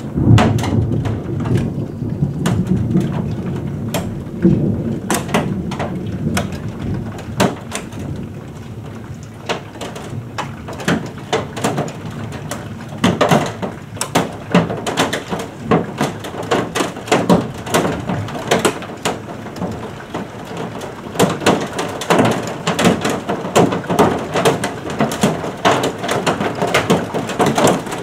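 Heavy thunderstorm rain, with many close drops tapping and clicking near the microphone. A roll of thunder rumbles over the first several seconds, loudest right at the start, then dies away into the rain.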